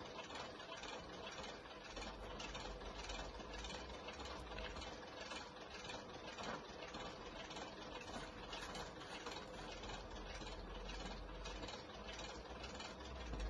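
Class 156 destination roller blind being wound through its destinations: a steady mechanical whirr with fine rapid clicking from the blind running over its rollers, and a low hum joining about two seconds in.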